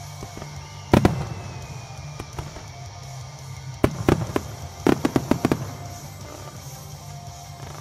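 Aerial firework shells bursting in the sky: one loud bang about a second in, then a quick run of several bangs between about four and five and a half seconds in, over music playing steadily underneath.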